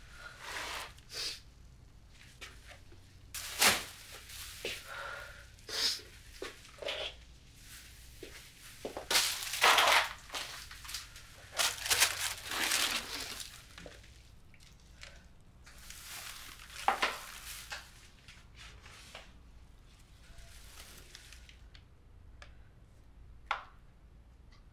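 Rustling, crumpling and knocking of clothes and belongings being rummaged through and moved about by hand, in irregular bursts with a few sharp thuds. The bursts thin out after about 18 seconds.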